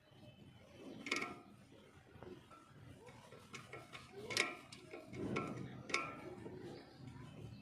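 Metal clinks and knocks of tools and washing machine parts being handled during repair work, a few of them ringing briefly; the loudest comes about four and a half seconds in.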